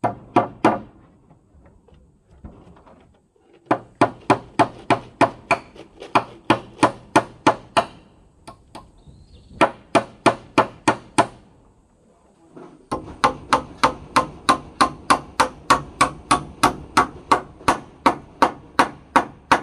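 Hammer driving nails into wooden boards: quick, even strikes about three a second, in several runs with short pauses between.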